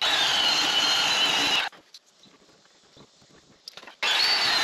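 Porter-Cable belt sander running against the cut edge of a cabinet's sink opening, a steady high whine over gritty sanding noise. It cuts off about a second and a half in, leaving about two seconds of near quiet with a few light knocks, then is running again near the end.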